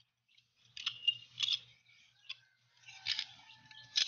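A small steel trigger-mechanism part scraping and clicking against a folded sheet-metal housing as it is worked inside it by hand: several short, faint metallic scrapes and clicks.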